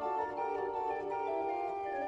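Small chamber organ playing a Baroque passage in several voices, held notes changing in steps, with the oboe resting.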